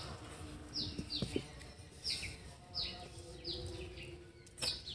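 A bird calling in a series of short chirps, each falling quickly in pitch, repeated roughly every half second to second. There are a couple of faint clicks among them.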